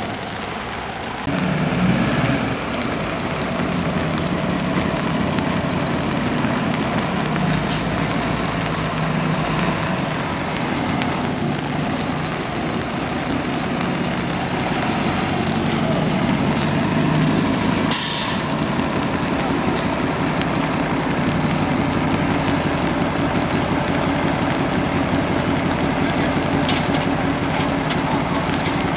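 Heavy truck engines running steadily in the water, stepping up in level about a second in. There is a short sharp air hiss, as from an air brake, about two-thirds of the way through.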